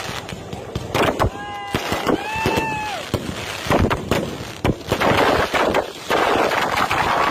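Fireworks going off in a quick string of sharp bangs and crackles, thickest in a dense crackling stretch near the end. Two short held tones with overtones sound about one and two seconds in.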